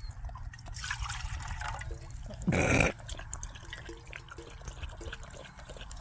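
Brittany dog lapping water from a small metal cup, a quick run of small wet laps. A short loud rush of noise cuts in about two and a half seconds in.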